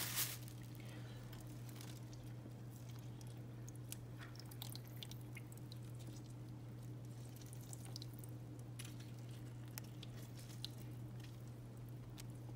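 Halved limes squeezed by hand, their juice dripping onto diced raw fish in a plastic container: faint scattered drips and squelches, with a steady low hum underneath.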